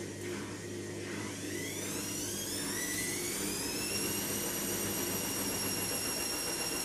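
A small motor's high-pitched whine spinning up over about three seconds and then holding steady, over a low steady hum.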